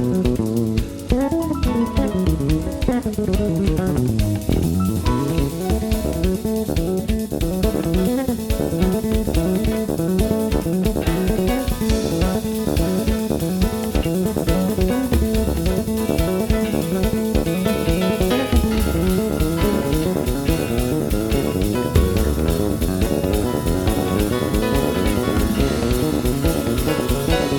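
Background music: instrumental guitar tune with bass and drums at a steady beat.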